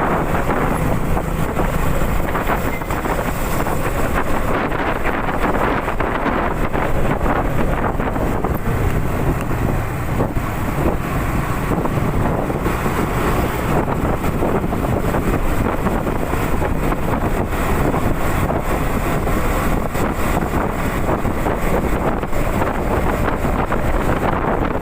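Honda CB150R's single-cylinder engine running steadily while riding, mixed with wind buffeting the microphone.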